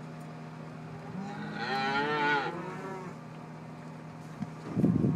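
One of the beef cattle on the drive moos once, a single call of about a second and a half with a wavering pitch, about a second in, over a steady low hum. A loud rumbling noise starts near the end.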